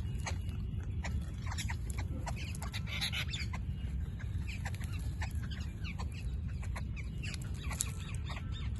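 Birds calling in a group, with many short chirps and clicks scattered throughout, over a steady low rumble.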